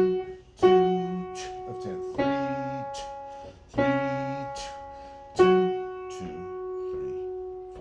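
Piano playing a simple children's tune on the black keys: single notes and chords struck about every second and a half, each left to ring. The last chord is held and fades out.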